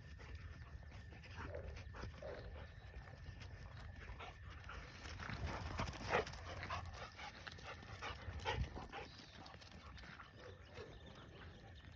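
Dogs panting, with short irregular scuffs and clicks throughout, loudest around the middle.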